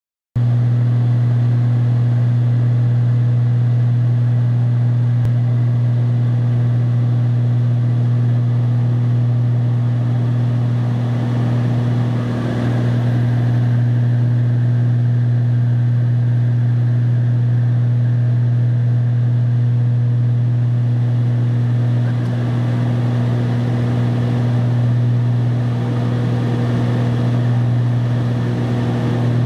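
Steady drone inside an airliner cabin in flight: engine and airflow noise heard through the fuselage, a strong low hum with a fainter higher tone over an even rush.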